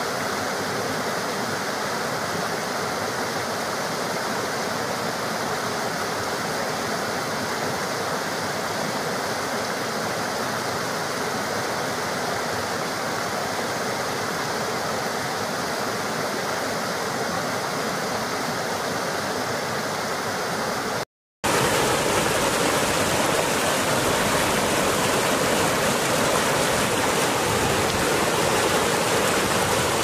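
Steady rush of a small woodland stream cascading over rocks into a pool. About two-thirds of the way through, the sound drops out for a moment and comes back as a slightly louder, lower stretch of running water.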